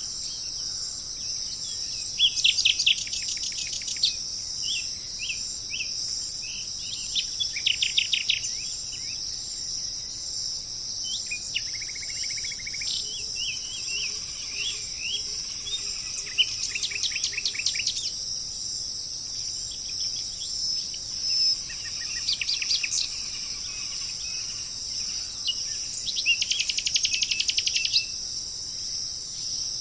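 Songbirds singing: a rapid trilled phrase of about two seconds comes every four to six seconds, with shorter chirps between, over a steady high-pitched drone of insects.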